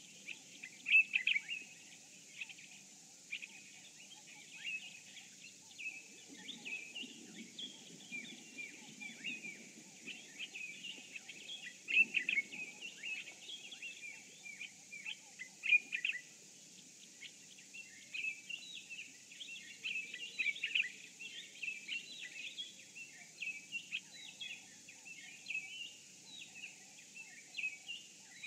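Dawn chorus of many small birds chirping and trilling in quick, overlapping calls throughout, over a steady faint high hiss.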